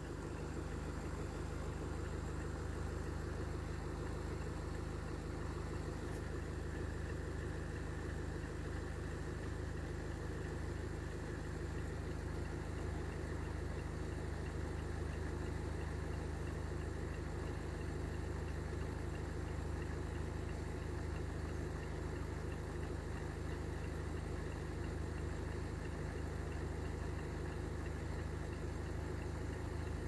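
Car engine idling steadily, a low even hum heard from inside the car.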